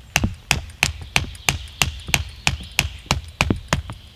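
Wooden stake being driven into the forest floor with the back of a hatchet: about a dozen sharp, evenly paced wooden knocks, roughly three a second.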